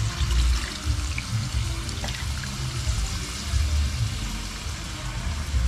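Coconut milk pouring from a bowl into a hot pan of crab pieces, a steady liquid splashing and hiss, over background music with a low, regular beat.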